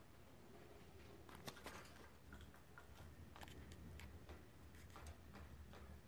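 Faint, irregular clicks and taps from a rosy-faced lovebird moving about in its wire cage close to the microphone.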